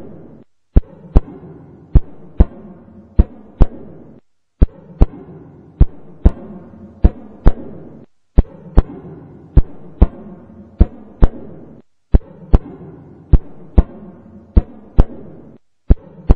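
Heartbeat sound effect: a steady lub-dub double thump about once every second and a quarter over a low hum, with short breaks about every four seconds.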